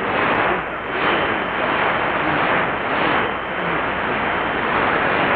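Weak shortwave AM broadcast of Radio Habana Cuba on 15140 kHz heard through a portable receiver: a steady wash of static and hiss, with faint voice or music barely showing through the noise.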